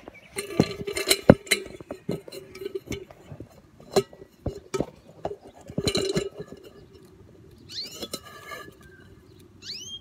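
Phone handling noise: fingers knocking and rubbing on the phone and its microphone as it is moved and set in place, a run of clicks and knocks over the first six seconds. A few short bird chirps follow near the end.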